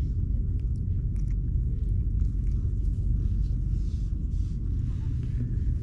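A steady low rumble, unbroken throughout, with a few faint clicks above it.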